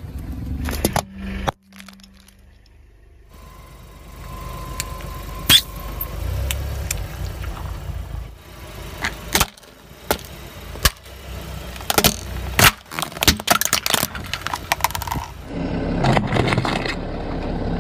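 A car tyre rolling slowly over small objects on pavement and crushing them, with a string of sharp cracks and crunches. A longer, louder crush comes near the end as the tyre flattens a tray of plastic jelly cups.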